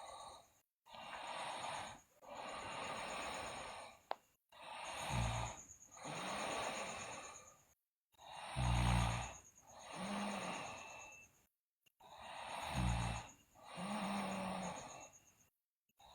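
A sleeping girl breathing heavily and snoring. Slow, noisy breaths come in and out with short pauses between them, and in the second half three breaths about four seconds apart carry a low rattling snore.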